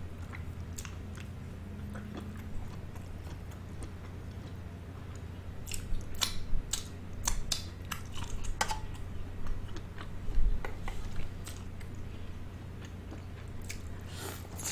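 Close-miked eating of sweet corn on the cob: crisp bites and wet clicking chewing, in clusters about six seconds in, around ten seconds and near the end, over a steady low hum.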